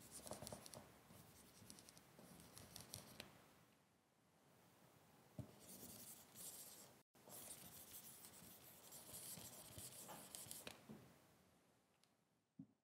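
Faint scratchy rubbing of drawing strokes, in runs of a few seconds each, pausing about four seconds in and cutting out briefly about seven seconds in.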